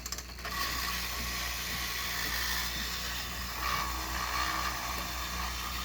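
Clockwork spring motor of a vintage tin wind-up helicopter toy: the winder ratchets briefly as it is wound, then a steady whirring follows from about half a second in.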